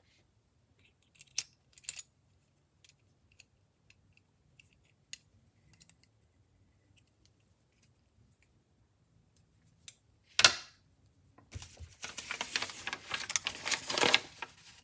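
Faint metallic clicks and taps from a Gerber EAB folding utility knife as its new blade is seated and the screw turned with a penny. A single sharp snap comes about ten and a half seconds in. From about twelve seconds the new, sharp utility blade slices steadily through a sheet of paper.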